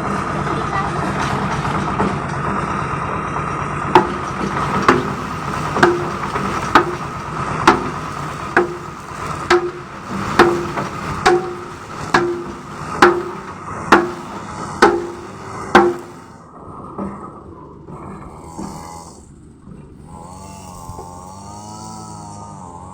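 Concrete mixer machine's engine running steadily. From about four seconds in, a sharp knock sounds roughly once a second, about a dozen in all, each with a brief ring. After the knocks stop the machine sound fades, and a wavering pitched sound comes in near the end.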